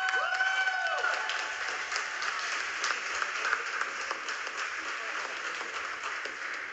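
Audience applauding and clapping steadily, with two high cheering calls that rise and fall in the first second; the applause eases off slightly toward the end.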